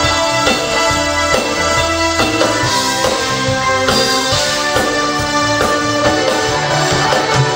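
Live band playing the instrumental opening of a Mandarin pop song, with drum kit, bass and electric guitar.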